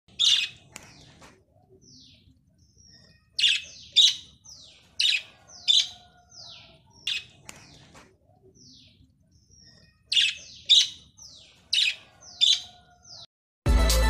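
Small caged parrots calling: loud, shrill chirps in clusters of two or three, with short falling notes in between. Electronic music starts just before the end.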